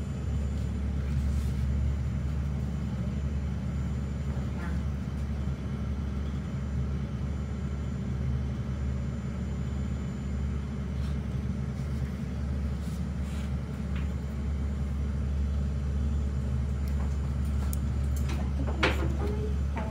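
Steady low machine hum, with a few brief sharp sounds near the end.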